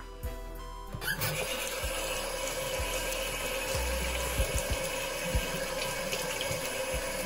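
Kitchen sink tap turned on about a second in and running steadily into the sink.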